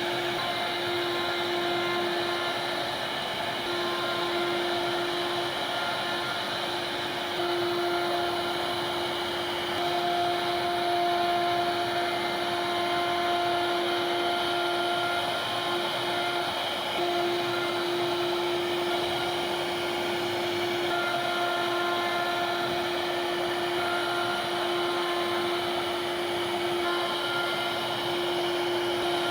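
CNC router spindle running steadily as it cuts wood, a constant whine over the hiss of the cutting.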